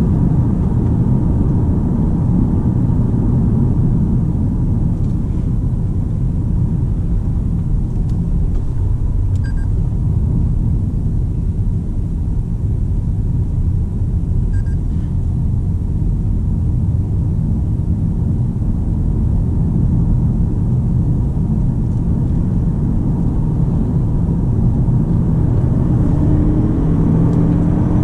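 Cabin noise of a Toyota Camry 2.5 hybrid saloon under way: a steady low rumble of road, tyres and drivetrain, with a rising engine note from its 2.5-litre petrol four-cylinder near the end. Two faint short high tones sound about five seconds apart.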